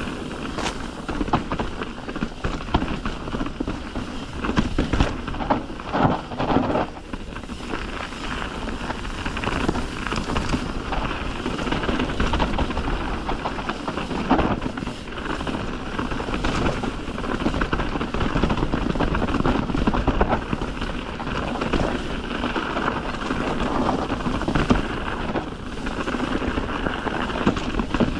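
Mountain bike riding down a rough dirt trail: constant rolling tyre and rumble noise, with sharp knocks and rattles as the bike hits rocks and bumps, the heaviest a few seconds in.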